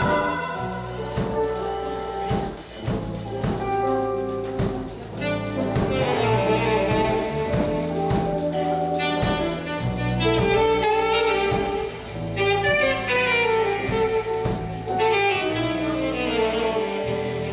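Instrumental passage of a Christian worship song, played by a band: drums keep the beat under a bass line and a melodic lead instrument.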